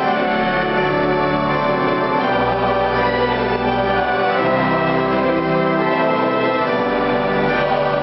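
Organ music: slow, sustained chords over held deep bass notes that change every couple of seconds.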